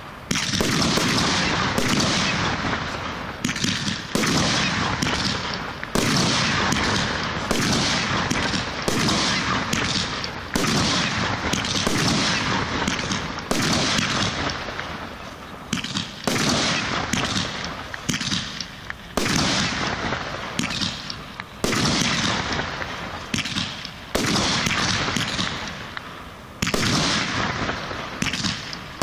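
Aerial firework shells going off one after another in a display: a sharp bang about every one to two seconds, each dying away over a second or so before the next.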